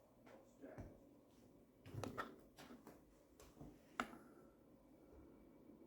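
Near silence broken by a few faint, scattered knocks and clicks, with one sharper click about four seconds in.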